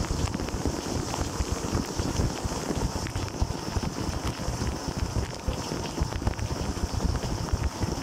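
Dishwasher wash cycle heard from inside the tub: water jets from the spray arms pelting the camera and the dish racks, a dense steady rumble with many small taps and a hiss.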